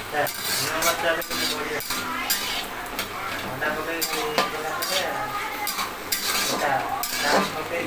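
A spatula scraping and clanking against a metal wok, stirring sliced onions as they fry in oil with a steady sizzle.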